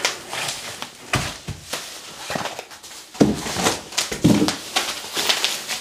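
Plastic bubble wrap around a portable solar panel rustling and crinkling as the panel is handled, with a few dull knocks about 1, 3 and 4 seconds in.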